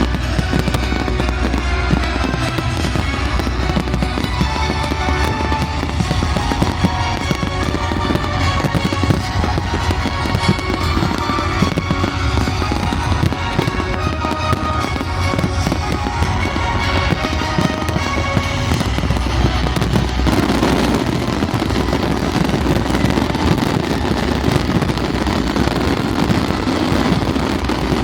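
Fireworks display: repeated bangs and crackles over loud show music. About twenty seconds in, the music gives way to a denser run of bursts and crackling.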